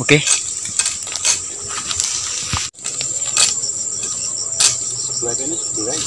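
Insects chirring steadily at a high pitch, with scattered light clicks and rustles and a brief break about halfway.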